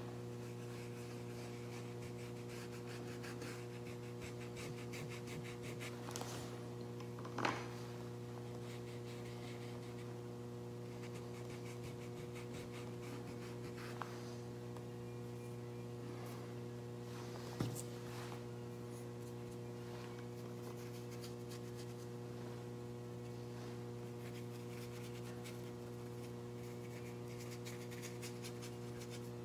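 Steady electrical hum, with faint rubbing of fingers and a paintbrush on paper and a few brief taps.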